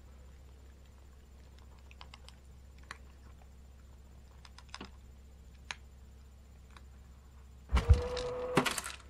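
Scattered faint clicks of a cat eating dry kibble from a feeder bowl. Near the end, a low thump and then about a second of the LUSMO automatic pet feeder's small electric motor running with a steady hum, with clicks over it.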